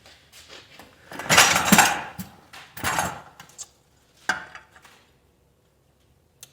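Steel hand tools clanking against metal while working an easy out in a broken head bolt on a Ford flathead V8 block: two loud clattering bursts, about a second in and near three seconds, then a single sharp tap at about four seconds.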